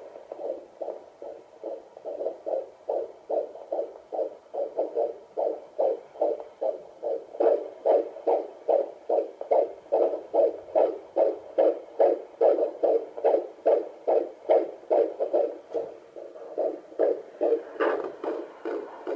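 Fetal heartbeat picked up by a handheld fetal Doppler probe on the mother's belly: a fast, regular pulsing of about two and a half beats a second, weakening briefly near the end before it returns.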